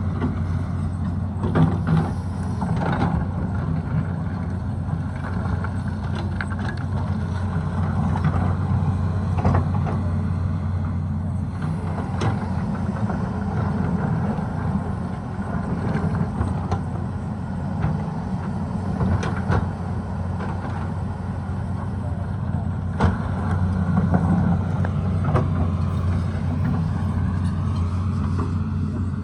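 Tata Hitachi excavator's diesel engine running steadily as it digs, with scattered knocks and clatters through the steady drone.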